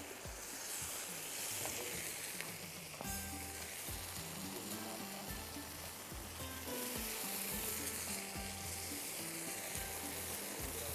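Water-dipped kulcha breads frying in butter and masala on a flat iron tawa, sizzling steadily as they are pressed down into the mix.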